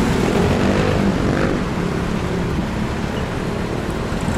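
An old jeepney's diesel engine running loud as the jeepney pulls across an intersection, over steady city traffic; its drone rises a little about a second in.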